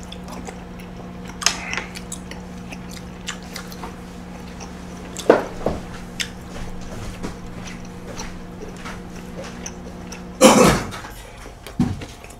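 Eating at a table: chopsticks clicking against dishes and chewing, in short scattered clicks over a steady low hum. About ten seconds in the hum stops, and the loudest sound comes at the same moment, a brief clatter.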